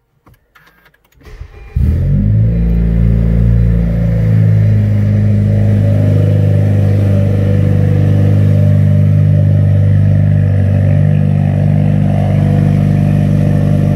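2019 Honda Civic Sport's turbocharged four-cylinder starting for the first time through a freshly installed Ktuned full exhaust. A short crank, then the engine catches suddenly just under two seconds in, runs at a raised idle for a couple of seconds, and settles to a steady idle.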